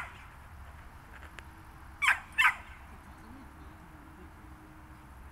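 Small dog barking twice in quick succession, two sharp high yaps about two seconds in, while it is held ready for a flyball run.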